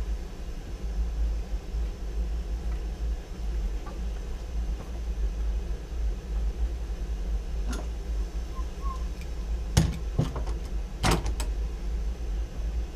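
A few sharp knocks and clatters from pieces of wood and material being handled on a table, over a steady low hum. The knocks come about 8 seconds in, then about 10 seconds in, then as a quick pair near 11 seconds.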